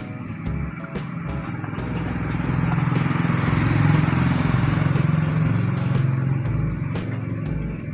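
Motorcycle engine running, growing louder toward the middle and then easing off again.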